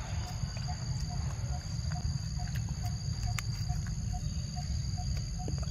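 Steady high insect drone with a short note repeating two or three times a second, over a low rumble, with a few faint clicks.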